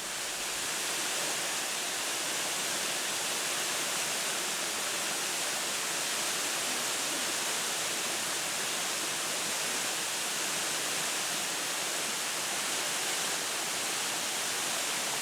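Tatsuzawa Fudo Waterfall, a 10-metre-high, 16-metre-wide fall, with a steady, unbroken rush of falling water.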